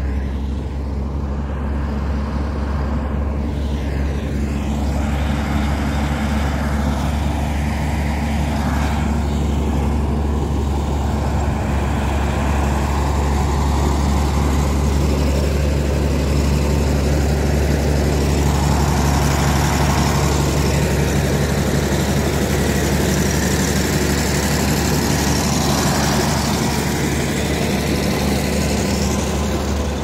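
Komatsu D85A-18 crawler bulldozer's diesel engine running steadily while the dozer works soil, a loud, deep, even engine note with no breaks.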